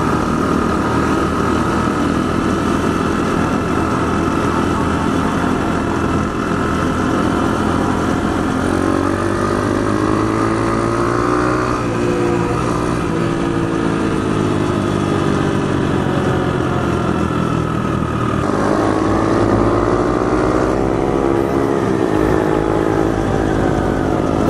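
Mini trail bike's small single-cylinder engine pulling under way at street speed, with wind noise. Its pitch climbs through the revs about nine seconds in, drops back, then climbs again a little before twenty seconds.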